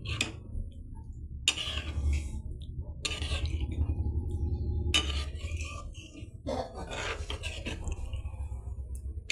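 A utensil scraping and clinking against a metal cooking pot, in short irregular strokes over a steady low hum.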